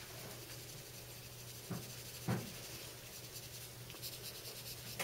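Graphite pencil scratching softly on paper in short shading strokes, pressed hard to build dark tone. Two brief low thuds come about the middle.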